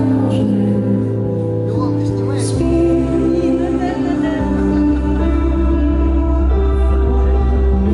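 Live rock band music through a concert PA, with sustained chords over a deep bass line and singing.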